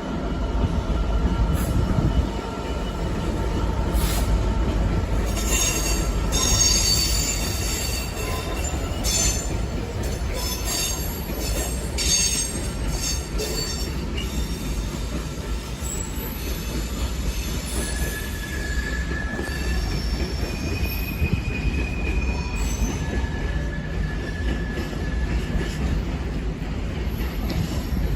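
Class 66 diesel locomotive passing with a train of wagons: a steady low engine and wheel rumble, with high-pitched wheel squeal that is densest from about five to fourteen seconds in and comes back as single held tones later.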